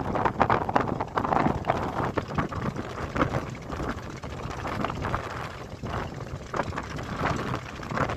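Heavy vehicle running, its rumble mixed with irregular gusts of wind buffeting the microphone.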